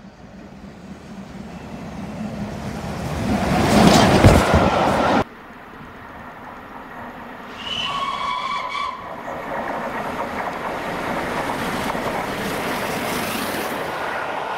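A steam train running through, its noise building as it comes near and peaking about four seconds in before cutting off abruptly. Then the Peppercorn A1 steam locomotive 60163 Tornado gives one whistle of about a second, followed by the steady noise of the train running past.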